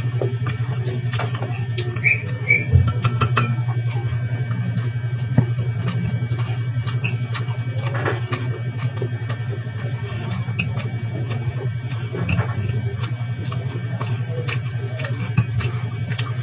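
Close-up eating sounds: chewing and small mouth clicks, with wooden chopsticks lightly tapping the paper cup and plate as siomai is picked up. A steady low hum runs underneath.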